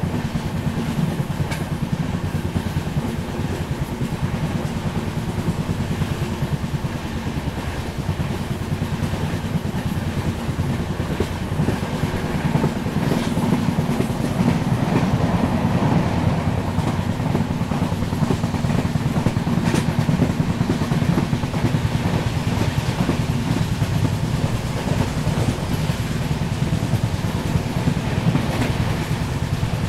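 Passenger express train running at speed: a steady rumble of the coach and its wheels on the track, swelling somewhat louder partway through.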